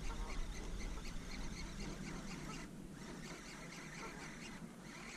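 A flock of geese calling, many overlapping honks in a continuous chorus, with a brief lull about three seconds in.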